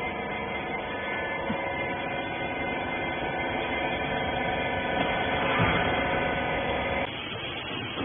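Hydraulic wiper rag baler's electric pump motor running with a steady hum of several tones, stopping abruptly near the end.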